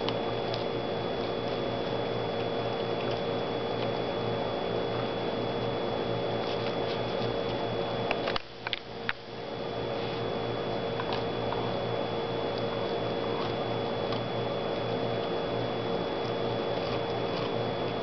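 A dog nibbling kernels off a corn cob: soft wet chewing with small scattered crunchy clicks, over a steady background hum that drops out briefly about eight and a half seconds in.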